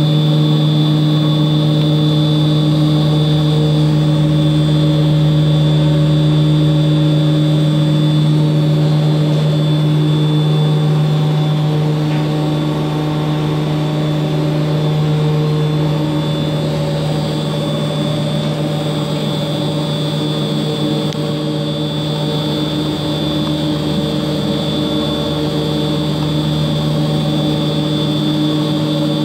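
Twin-shaft continuous paddle mixer running: the electric motor and worm gearbox driving its paddle shafts give a steady hum with a thin high whine over it.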